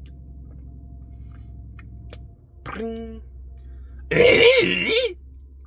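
A man's wordless vocal sounds: a short hum about three seconds in, then a loud, wavering exclamation lasting about a second near the end, its pitch swooping up and down twice. A low steady hum runs underneath.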